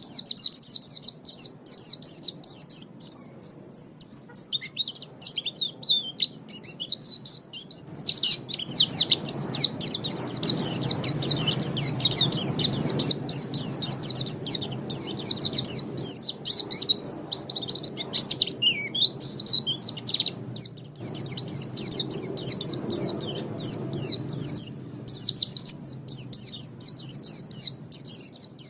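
White-eye (pleci) singing a fast, continuous twittering song of rapid, high chirps. A low background rumble sits under it through the middle stretch.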